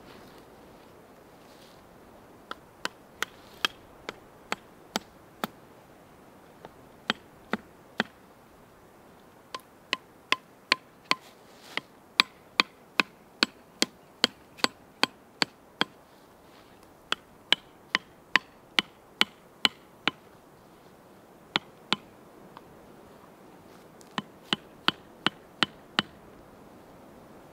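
Hatchet used as a hammer, driving pup-tent stakes into the ground: sharp knocks in runs of several blows, about two to three a second, with short pauses between the runs.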